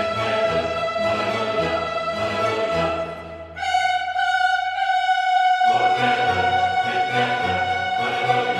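Orchestral background music with long held notes. It thins out about three seconds in and a new higher note enters, then the full ensemble comes back in just before six seconds.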